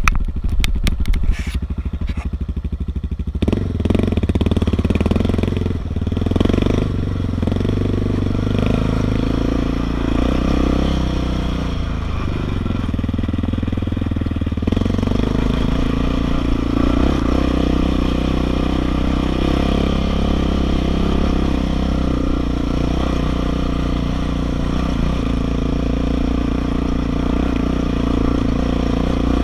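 A 660R ATV's engine puttering in quick, even pulses for the first few seconds, then revving up and down in low gear as the quad picks its way over a steep, rocky trail. Rocks and gravel clatter under the tyres.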